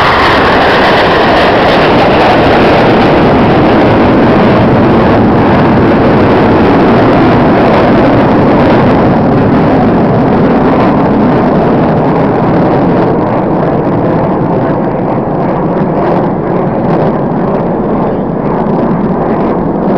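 Jet noise from a Red Arrows BAE Hawk's turbofan engine as it flies past, a loud, steady rush that eases slightly in the second half as the jet draws away.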